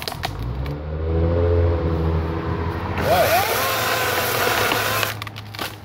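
Greenworks 40-volt brushless cordless chainsaw running with a steady electric hum. From about three seconds in the chain bites into a tree limb and a harsh rasp joins the hum for about two seconds. It stops with a few sharp clicks near the end.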